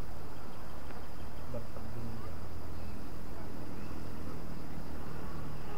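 Outdoor ambience of insects chirring steadily, over a low steady hum.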